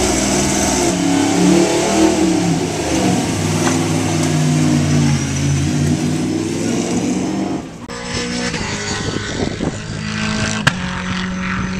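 Holden Commodore V8 Supercar's V8 engine revving, the pitch rising and falling, as the car pulls away down pit lane. About eight seconds in the sound cuts to a quieter, steadier engine drone, with one sharp click near the end.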